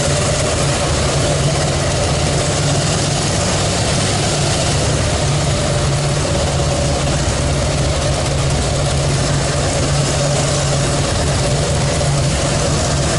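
2014 Harley-Davidson Fat Boy Lo's V-twin engine running steadily under an even rushing hiss, with no change in pitch or level.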